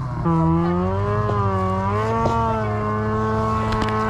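Snowmobile engine running, its pitch dipping as the throttle eases at the start, then holding fairly steady with small rises and falls in revs.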